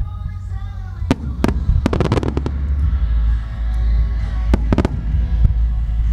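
Aerial firework shells bursting over a continuous deep rumble: sharp reports about a second in, a rapid crackling cluster of reports around two seconds in, and two more close together past the middle. Music plays underneath.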